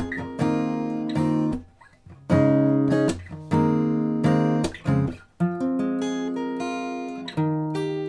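Background music: acoustic guitar strumming chords, each strum ringing out and fading, with a couple of short breaks.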